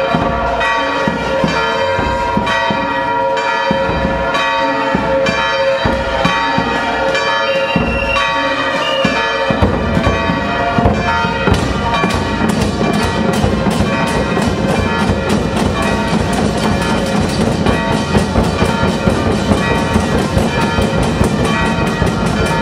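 Church bells ringing continuously under a marching drum corps beating drums. About ten seconds in, the drumming turns into a fast, dense roll.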